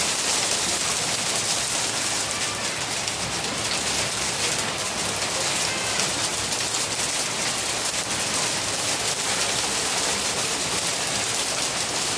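Sudden heavy downpour mixed with hail: a steady, dense hiss of rain pelting the ground, with a fine patter of hits throughout.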